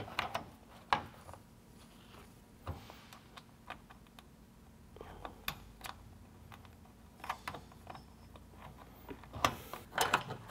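Scattered light clicks and taps of small metal J brackets and hardware against a plastic grille shell as they are fitted by hand and finger-tightened, with a few louder knocks near the end.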